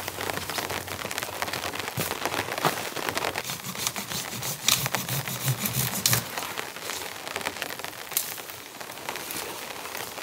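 Rain pattering steadily, over the crackle and snap of wet dead branches being broken off a fallen tree and dragged through twigs, with a few sharper snaps in the middle.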